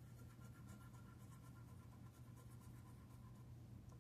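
Faint scratching of a lottery scratch-off ticket: light, irregular strokes several times a second over a steady low hum.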